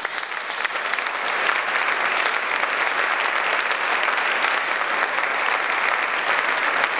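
Audience applauding: many hands clapping together in a dense, even patter that swells over the first second and then holds steady.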